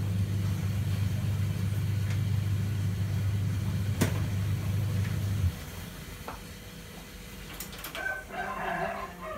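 A steady low electrical hum from a running kitchen appliance, which cuts off abruptly about five and a half seconds in; light clicks and kitchen clatter follow near the end.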